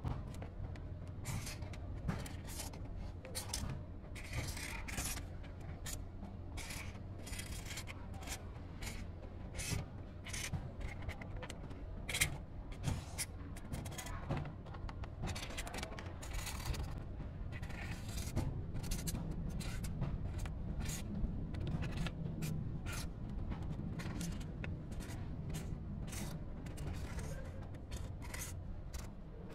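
Pen scratching along the edge of a cardboard template as it traces onto a styrofoam board: many short scratchy strokes in quick succession, over a steady low hum.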